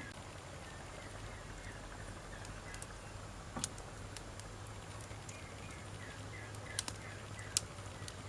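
Wood fire crackling, with a steady low hiss and three sharp pops from the burning logs, one about halfway and two near the end.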